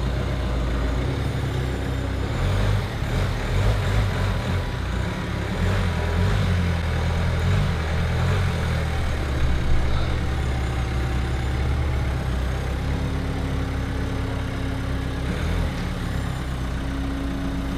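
Car engine running at low revs while the car is manoeuvred, a steady low rumble with slight rises in revs.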